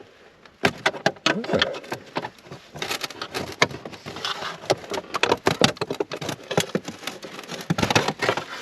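Irregular clicks, knocks and rattles of a screwdriver and hands working at a clip and loose parts in a car's footwell.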